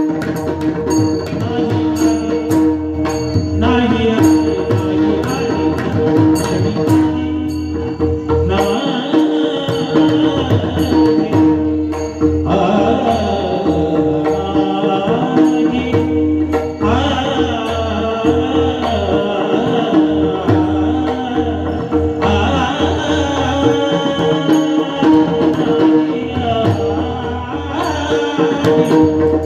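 Marathi Warkari kirtan singing: a devotional melody sung over pakhawaj drumming and a steady drone, with regular metallic cymbal strikes keeping the beat.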